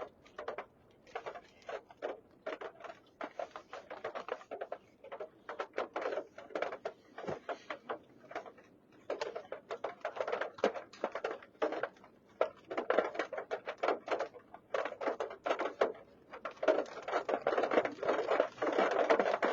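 Raindrops pattering on the vehicle's roof and windshield, heard from inside the cab: irregular sharp ticks that thicken into a steadier patter near the end as the rain picks up.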